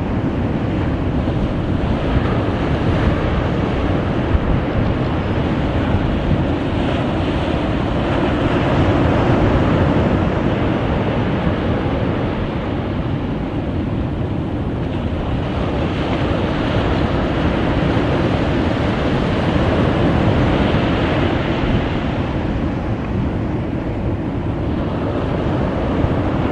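Rough surf breaking and washing steadily, with wind buffeting the microphone into a dense low rumble that swells and eases a little.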